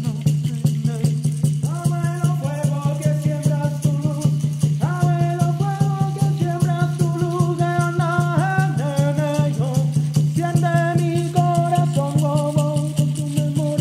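Ritual-style music: a gourd rattle shaken in a steady pulse of about four to five strokes a second over a steady low drone, with a wavering chant-like voice coming in about two seconds in and singing in phrases.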